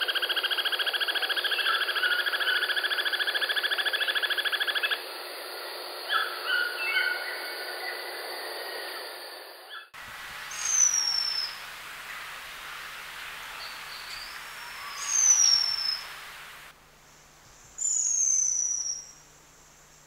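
White-necked puffbird giving a long, rapid trill that rises slightly over about five seconds, then a few short notes. After that, a white-whiskered puffbird gives thin, high, falling whistles, three times.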